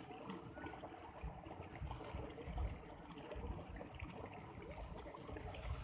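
Faint waterside ambience: water trickling, with uneven low rumbles, the strongest about halfway through.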